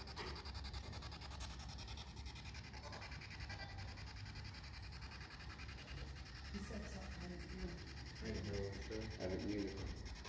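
Faint static hiss and low hum from a handheld spirit box held by a microphone, with brief faint voice-like fragments about six and eight seconds in.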